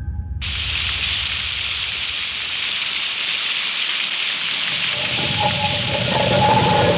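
A steady, hissing gush of liquid pouring from a cracked hanging sphere, starting suddenly about half a second in as the music stops. A few faint wavering pitched tones join near the end.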